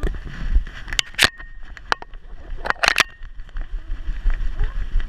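Knocking and rubbing noise from a GoPro camera strapped to a dog's back as the dog moves: a low rumble with several sharp knocks, the loudest about a second in and a quick cluster near three seconds.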